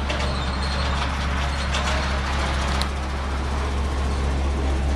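Chevrolet Silverado 2500 HD's gas V8 idling steadily: an even, unchanging low hum.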